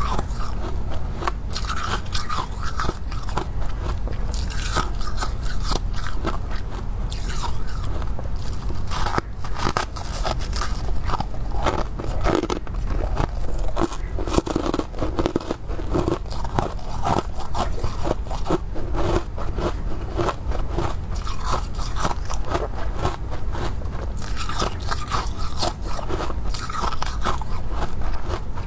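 Close-miked crunching and chewing of freezer frost: dense, irregular crisp crunches.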